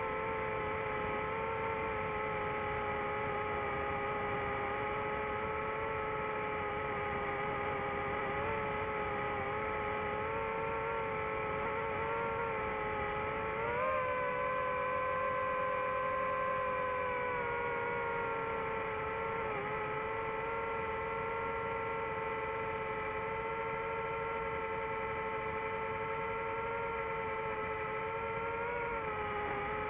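Multirotor camera drone's motors and propellers whining steadily in flight, the pitch shifting with throttle: it rises briefly about halfway through, dips a few seconds later, and climbs again at the very end.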